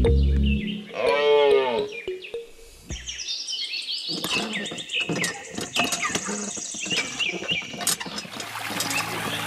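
A cow's moo ending just after the start, then a short rising-and-falling call about a second in. From about three seconds on, birds chirp and tweet in many quick, falling high notes.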